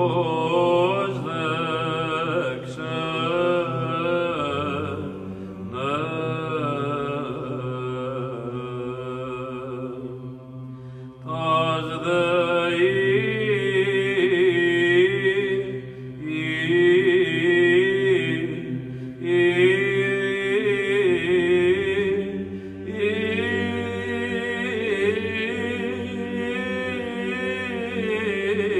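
Chanted vocal music: voices sing a slow, wavering melody in phrases of a few seconds over a steady held low note.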